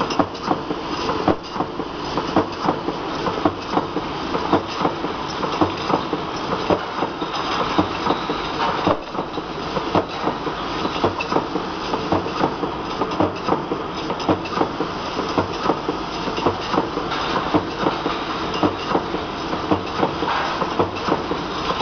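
Single-colour automatic screen printer for round surfaces running: a steady mechanical noise with frequent, irregular clacks as metal cups are passed along its conveyor.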